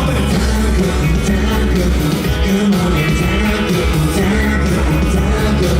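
Live pop-rock band music with a steady beat and a heavy bass line.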